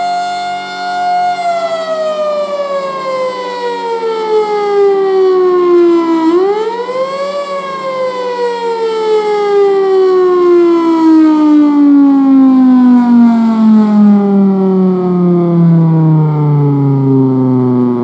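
Federal Signal Thunderbolt 1000 single-phase siren with blower running loud. Its steady tone sinks into a long falling wail, rises briefly about six seconds in, then falls away again to a low drone.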